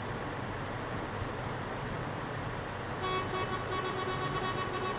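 A truck air horn sounds about three seconds in and is held for a couple of seconds, a steady multi-note blast, over a steady background din of a crowd of show trucks.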